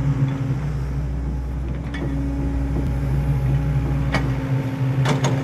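Steady low engine drone, with a few short sharp clicks about two seconds in, again about four seconds in, and twice near the end.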